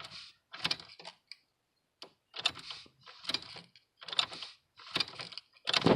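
Ignition key being worked in a freed-up truck ignition switch, with the keyring jangling: a run of short clicking rattles, about one a second.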